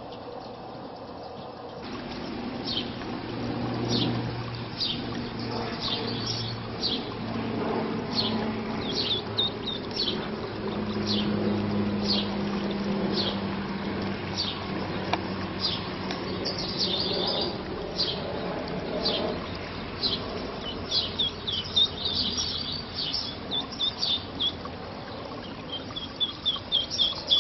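Mallard ducklings peeping: short high peeps about once a second, breaking into quicker runs of chirps near the end, over a low steady hum.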